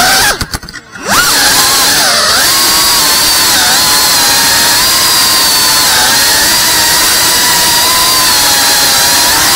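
FPV quadcopter's brushless motors and propellers whining. The sound cuts out briefly soon after the start, then spools straight back up into a steady high-pitched whine whose pitch wavers slightly as the throttle changes.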